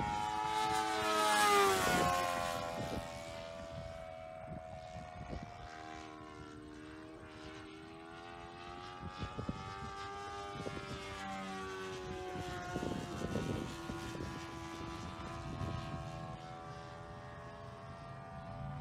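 Sportster 60 RC model airplane's engine and propeller buzzing steadily in flight. It is loudest about a second and a half in, where the pitch drops as the plane passes close by, then carries on more quietly, rising and falling a little in pitch as the plane circles.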